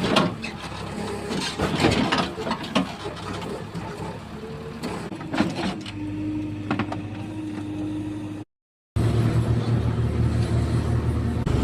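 Excavator's diesel engine running while digging, with a run of knocks and cracks in the first three seconds and a steady whine about six seconds in. The sound cuts out completely for half a second, then the engine comes back louder.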